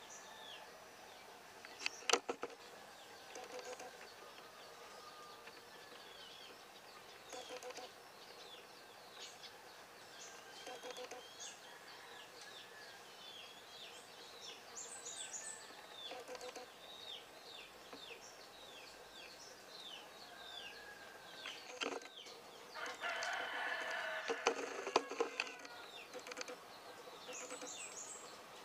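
Faint birdsong: many small birds chirping in quick, short falling notes, with a rooster crowing about two-thirds of the way through. Two sharp clicks, one near the start.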